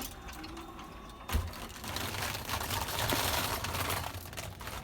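Claw crane game machine's mechanism running with a dense rattling and clicking, after a single sharp thump about a second and a half in.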